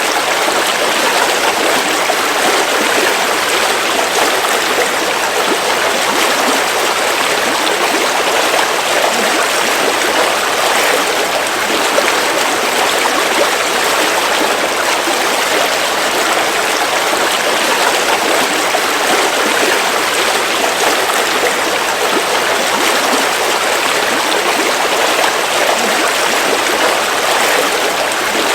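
A river or stream flowing steadily over rocks, an even rush of water.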